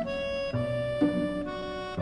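Background score of sustained melodic notes on a reedy or bowed instrument, changing pitch about every half second.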